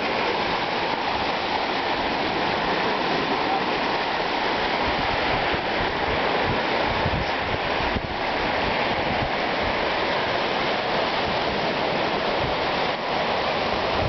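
Steady rushing of sea water washing over and among shore rocks, an even roar that holds at one level throughout.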